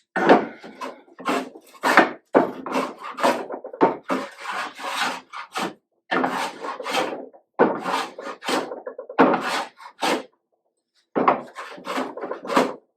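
Hand plane taking shavings off a wooden board in a quick run of short strokes, each a rasping hiss of about half a second to a second, while the board's face is flattened.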